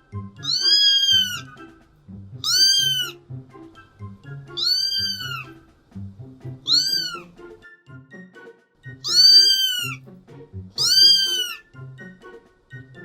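Kitten meowing over and over: six high-pitched meows, each rising then falling, about two seconds apart, over background music.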